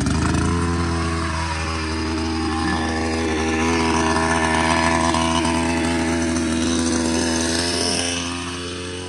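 Petrol chainsaw running steadily at one even pitch, a little quieter near the end.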